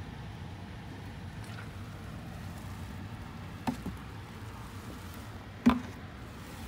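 Liquid poured from a plastic jug into a PVC condensate drain pipe, trickling down the line to flush a clog, over a steady background noise. Two short knocks, the second louder near the end.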